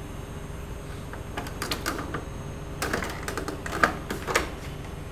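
A quick run of light plastic and glass clicks and knocks, as a water dispenser's push-button tap and a glass jug under its spout are handled. The clicks start a little over a second in, and the loudest come about four seconds in.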